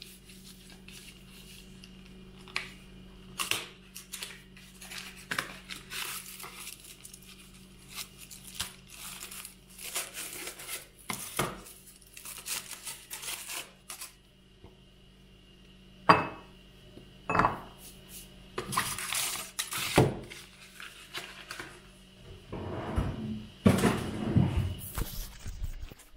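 A chocolate bar being unwrapped and broken into squares that drop into a ceramic bowl: packaging rustling, snaps, and scattered light knocks and clinks of chocolate on the bowl, busier and louder in the second half.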